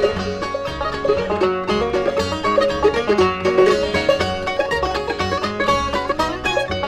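A bluegrass band plays an instrumental passage with no singing: quick banjo picking over guitar, mandolin and a steady walking bass line.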